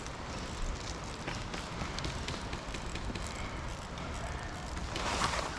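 Wind rumbling on the microphone with scattered light clicks and knocks, and a short hiss of noise about five seconds in.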